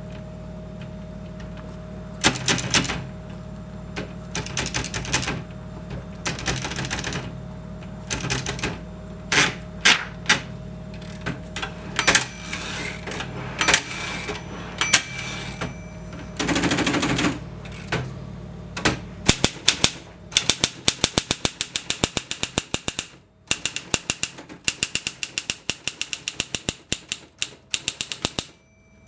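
Alpina manual typewriter being typed on. At first there are scattered keystrokes in short clusters with a few longer rattles, then from about two-thirds through a steady run of rapid keystrokes, several a second, with one short pause. A steady low hum runs underneath during the slower part.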